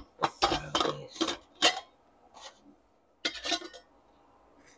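Plastic and metal clatter of a black insulated food jar's lid being opened and handled: a quick run of knocks and scrapes, then another short cluster of knocks about three seconds in as a ladle and chopsticks work in the pot of udon soup.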